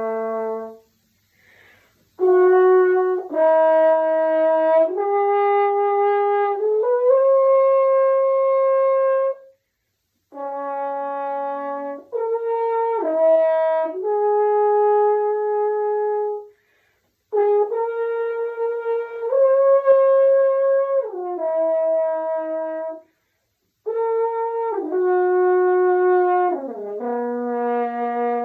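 French horn played in phrases of held notes that step up and down in pitch, with short breaks between phrases.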